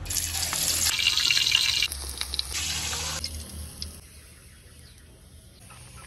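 Pork belly sizzling as it fries in hot oil in a wok: a loud hiss that drops away about three seconds in to a faint sizzle.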